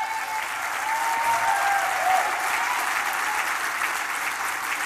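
Audience applauding, a dense steady clapping, with a few voices calling out over it in the first couple of seconds.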